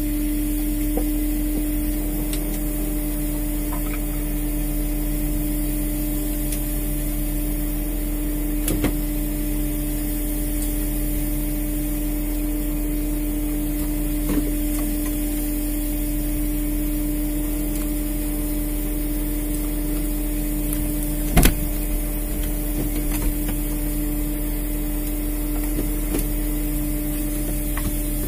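Fishing boat machinery running with a steady, even hum, one clear tone held throughout. A few light clicks, and one sharper knock about twenty-one seconds in.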